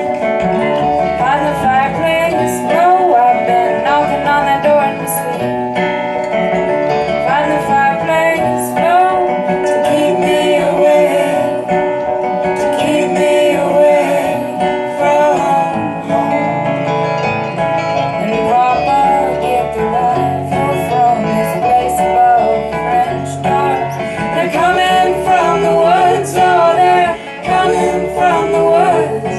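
Live folk music: acoustic guitar played under a singing voice.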